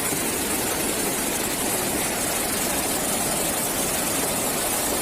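Steady, unbroken rush of fast-flowing floodwater.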